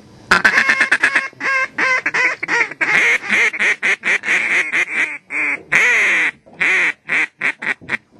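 Mallard duck calls blown close by in fast runs of loud, short quacks with brief pauses, calling to ducks that are circling the blind.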